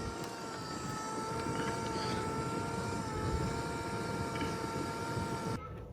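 Clothes dryer's blower pushing a strong flow of air through the freshly cleared vent: a steady rush of air with an even humming whine. The strong airflow is the sign that the lint blockage is gone. It cuts off suddenly near the end.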